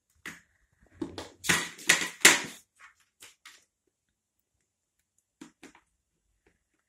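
A cat scuffling after its prey on a laminate floor and against plastic litter trays: a burst of clattering knocks and scrapes lasting about a second and a half, then a few light clicks near the end.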